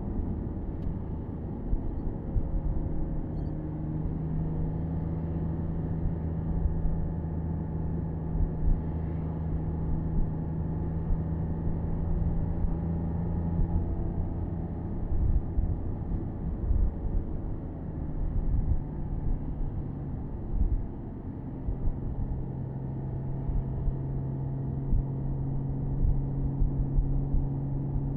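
Porsche Boxster S 987.2's 3.4-litre flat-six running at a steady cruise, heard from the open-top cabin over low road rumble and wind. About two-thirds of the way through, the engine note drops to a lower pitch and holds there.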